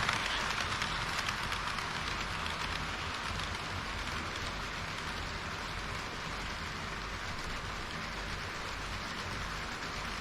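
HO-scale model train running on the layout's track: a steady rushing hiss of wheels on rail and the running gear, easing off slightly in loudness.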